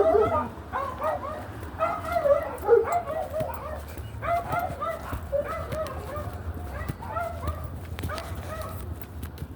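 Dogs barking and yipping in quick runs of short, high calls, thinning out near the end, over a steady low rumble.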